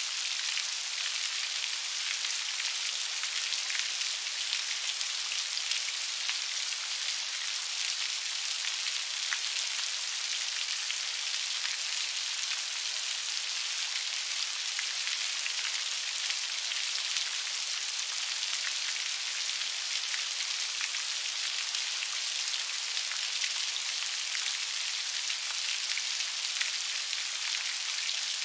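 Steady rain: a dense, even hiss of falling raindrops flecked with fine ticks of individual drops, with no breaks or change.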